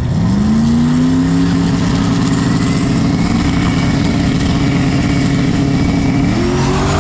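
Drag race car engine revving up in the first second or so, then held at a steady high pitch. A second rise in engine pitch joins near the end.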